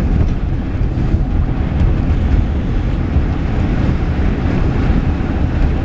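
Steady low rumble of a car being driven, heard from inside the cabin, with wind buffeting the microphone.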